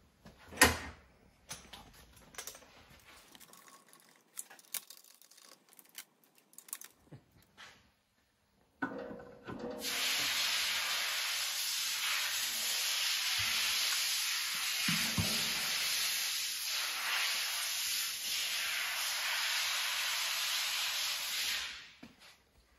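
A sharp knock right at the start, then light clicks and rustling of parts being handled. About ten seconds in, a steady hiss of escaping pressurized gas starts and runs evenly for about twelve seconds before cutting off.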